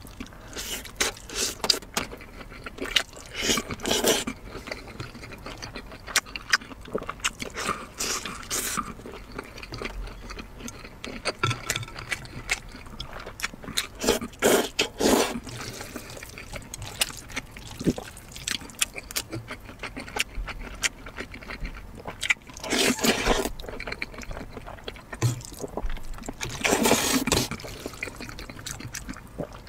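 Close-miked eating sounds: wet chewing and lip smacking, with several loud slurps of noodles.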